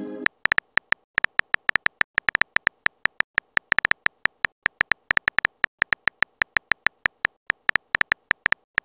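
Simulated phone-keyboard tap sounds from a texting-story app: a rapid run of short, sharp clicks, about six a second, one per letter as a message is typed.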